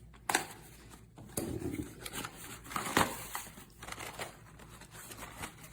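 Product packaging being handled and opened: crinkling and rustling with a few sharp clicks, the loudest about three seconds in.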